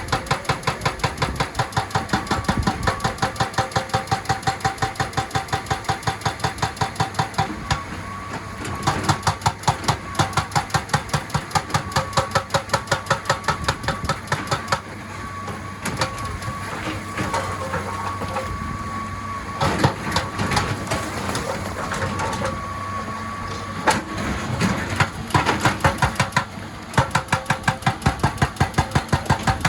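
Excavator-mounted hydraulic breaker hammering rock: rapid, even blows, about five a second, over the running diesel engine. The hammering stops for a long stretch in the middle, leaving the engine and a few single knocks, then starts again near the end.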